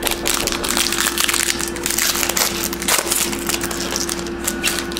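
Foil wrapper of a trading card pack crinkling and tearing as it is ripped open by hand: a dense run of crackles for about three seconds, then a few more crinkles near the end.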